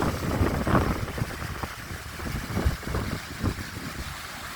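Wind buffeting the microphone in gusts, a low uneven rumble, with the wash of the sea faintly behind it.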